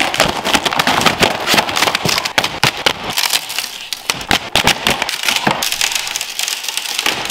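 Cardboard shipping crate being torn open and pulled apart by hand: a dense, continuous run of ripping, crackling and sharp snaps, busiest in the first few seconds.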